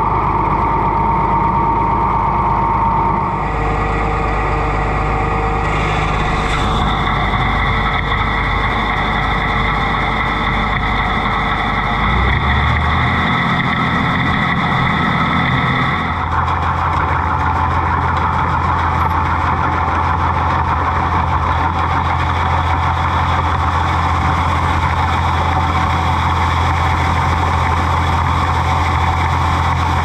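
Oliver tractor engine running steadily. Its tone changes abruptly several times, then settles into a steady deeper drone about halfway through.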